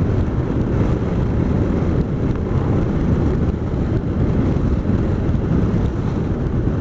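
Motorcycle riding along at road speed: a steady rush of wind on the microphone over the engine and road noise.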